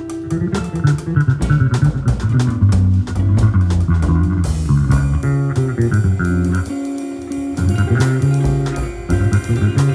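Live instrumental jazz-rock fusion from a trio of guitar, electric bass and drum kit. The bass holds a steady line under dense drumming that gives way to a cymbal crash about halfway through, followed by lighter playing.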